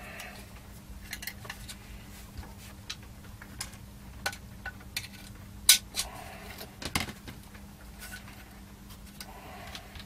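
Small metal parts of a power-supply transformer bracket clicking and clinking as they are fitted together by hand with a screwdriver, in scattered taps with two sharper clicks just past halfway.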